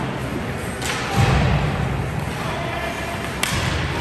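Ice hockey play in a rink: a sharp clack just under a second in, a low thud just after it, and another sharp clack near the end, over steady rink background noise.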